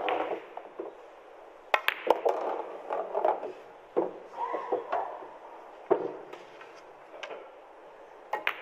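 Pool balls clicking, several sharp knocks a couple of seconds apart as the cue strikes the cue ball and the balls collide, over a low murmur of arena crowd noise.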